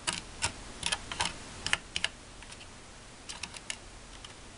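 Small plastic stirring tool clicking and tapping against a plastic candy-kit tray while mixing powder and water in a mold: irregular light clicks, most in the first two seconds, then a few more about three and a half seconds in.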